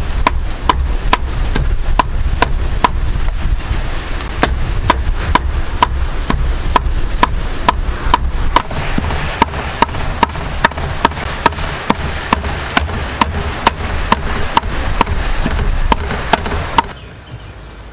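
Meat cleaver chopping raw pork into mince on a thick round wooden chopping block: steady strokes, about two and a half a second, each with a short ring. The chopping stops near the end.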